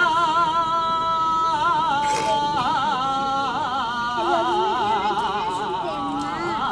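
A saeta: one unaccompanied voice singing long held notes, heavily ornamented with rapid wavering turns, in the flamenco-style lament sung to a Holy Week image.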